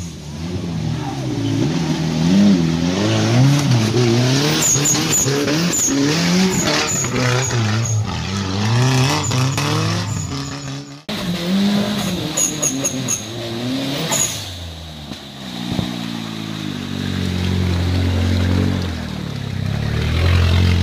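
Off-road 4x4's engine revving hard up and down, over and over, as it claws up a muddy climb with its wheels spinning, with a few sharp clicks in the first half. After a cut about halfway through, an engine revs up again, its pitch climbing steadily toward the end.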